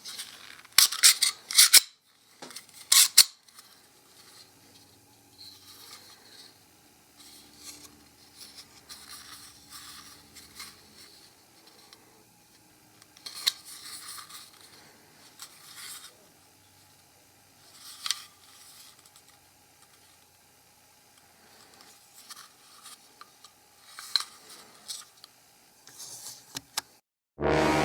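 Pez dispenser card-and-blister packaging being cut and opened by hand: scattered sharp crinkles, snips and scrapes, loudest in the first few seconds, with quiet rubbing between. Near the end a loud pitched sound starts suddenly.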